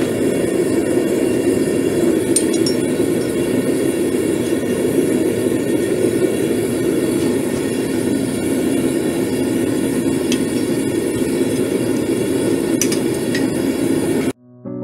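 Gas forge burner running steadily, with a few light metal clinks. It cuts off abruptly near the end, and acoustic guitar music begins.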